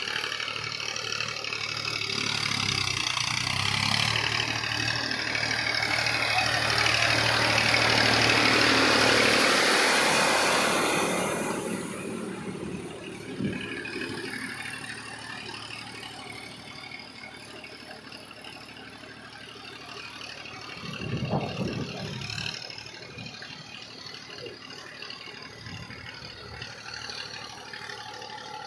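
Massey Ferguson 1035 DI tractor's diesel engine working through a flooded, muddy field, with water and mud churning around its wheels and implement. It grows loud as the tractor passes close by and drops off about twelve seconds in, then runs on more quietly with one short louder surge about two-thirds of the way through.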